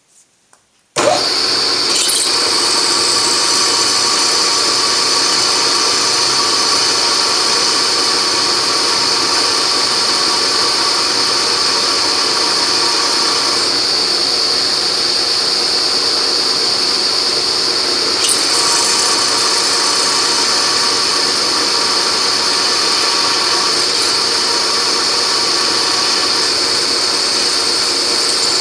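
Beaver milling machine starts about a second in and runs steadily, drilling a 3.5 mm hole through a broken titanium screw.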